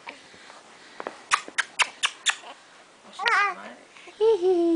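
A quick run of about six sharp clicks, then a young infant vocalizes twice: a short wavering whimper, then a longer one that falls in pitch.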